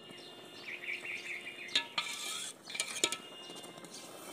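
Metal stirring utensil scraping and clinking against the side of a brass pot as simmering kheer milk is stirred, with a few sharp clinks about two and three seconds in.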